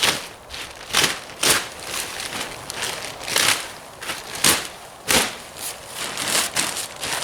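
Plastic silage clamp sheet crinkling and rustling as it is handled, in irregular swishes about every half second to a second.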